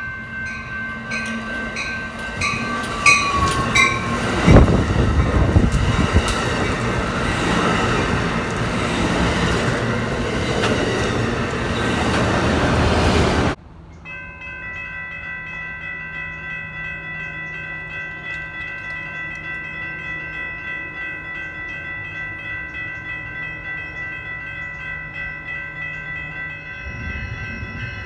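A grade-crossing bell ringing with a train horn sounding, then a passenger train passing close by with loud wheel and rail noise. About halfway through it cuts to another crossing, where the electronic crossing-signal bell rings steadily. Near the end the low rumble of an approaching commuter train rises under the bell.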